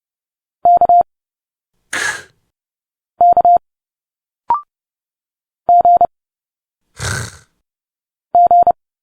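Morse code characters sent at 30 words per minute as a steady beep tone: four short groups of quick dits and dahs. Twice between them comes a brief hissing spoken consonant sound, and once a very short rising chirp.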